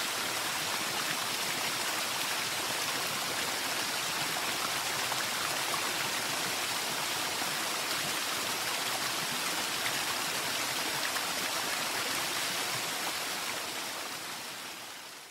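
Steady rushing of running water, a dense even hiss, fading out over the last couple of seconds.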